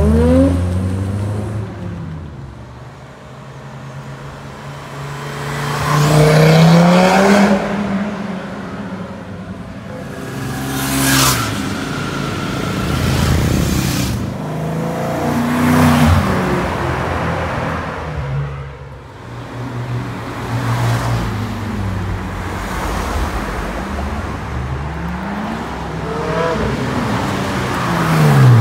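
Several cars accelerating hard past one after another, each engine revving up through the gears and then fading away.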